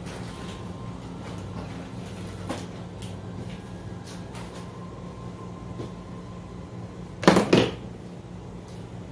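A steady low hum with a few faint clicks, then a loud double knock, two quick strokes, about seven seconds in.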